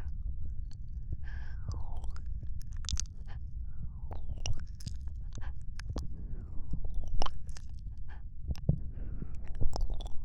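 Close-miked ASMR mouth sounds: wet clicks and smacks of lips and tongue at irregular intervals, with a few soft breaths between them. A steady low rumble runs underneath.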